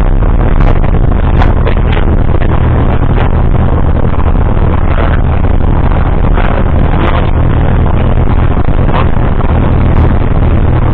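Light aircraft's piston engine idling steadily just after a cold start, heard from inside the cockpit, with a few light clicks over it.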